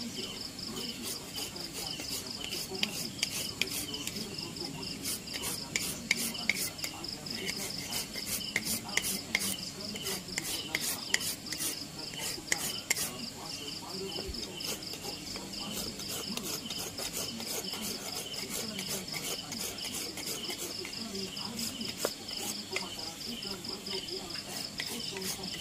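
A hand tool scraping and cutting into a carved wooden keris hilt, heard as a run of short sharp clicks and scrapes that are busiest in the first half and sparse later. Under it, insects keep up a steady high-pitched pulsing trill.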